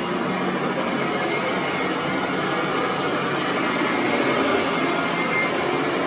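Royal commercial upright vacuum cleaner running steadily: an even, loud rush of motor and air with a faint high whine.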